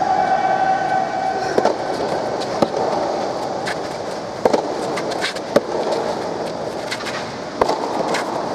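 Soft tennis rally: a rubber ball struck by rackets and bouncing, sharp pops about one to two seconds apart over steady crowd noise, with a held voice-like tone in the first second and a half.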